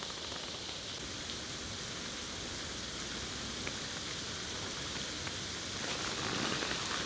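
Steady outdoor background hiss with a few faint ticks, growing slightly louder near the end.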